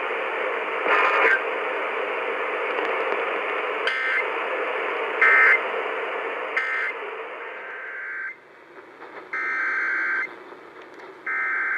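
Weather radio reception full of hissing static, cut by short two-tone digital data bursts of the Emergency Alert System. Three quick end-of-message bursts come about a second apart around four to seven seconds in. The hiss drops away about eight seconds in, and longer header bursts of the next alert follow, about two seconds apart.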